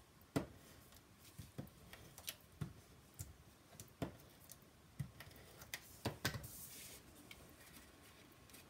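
About a dozen soft, irregular taps and clicks of cardstock and patterned paper being handled and pressed down onto a card front on a tabletop. The sound is quiet throughout.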